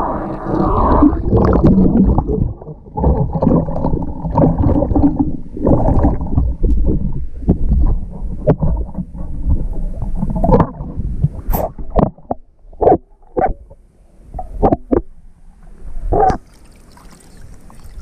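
Underwater digging with a metal sand scoop in a lake bed: muffled rumbling and sloshing as the scoop works the bottom. From about ten seconds in, sharp clicks and rattles of gravel and metal against the scoop as its load is sifted by hand.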